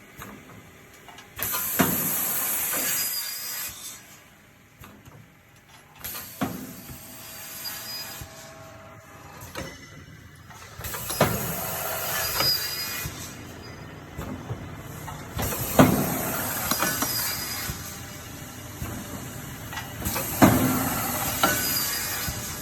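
Automatic aluminum hinge processing machine cycling through hole punching, chamfering and cutting: hissing and sharp metallic strikes, with a loud stroke about every four to five seconds.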